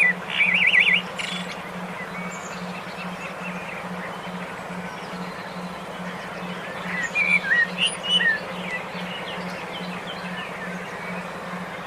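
Songbirds chirping and calling over a steady hiss, with a trilled warble about half a second in and a burst of chirps around seven seconds. A low hum pulses evenly several times a second beneath, the brainwave-therapy tone of a track meant to stimulate caged songbirds to sing.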